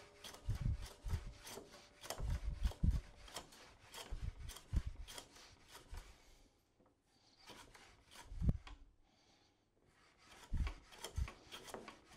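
Hand plane run along a shooting board, shaving the end of a laminated hardwood block square. Repeated planing strokes, each a crackling hiss of the blade cutting with a dull thud, with a short pause in the middle.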